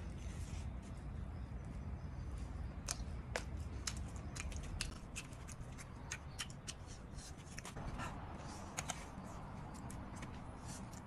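Close-up chewing and lip-smacking of grilled pork belly: a run of sharp, wet clicks over a steady low background rumble.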